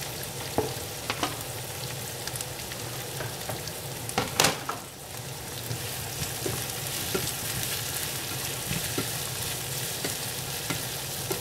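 Chopped red bell pepper, onion and garlic sizzling in oil in a frying pan, stirred with a slotted spoon that clicks and scrapes against the pan. The loudest knocks come about four seconds in, and the sizzling grows a little louder after that.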